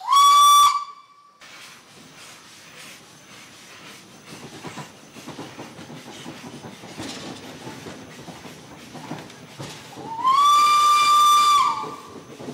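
Steam whistle of the 1873 vertical-boiler cogwheel steam locomotive No. 7 of the Rigi Railways: a short blast at the start and a longer one about ten seconds in, each sliding up to a steady shrill pitch. Between the blasts the train runs with a rattling clatter.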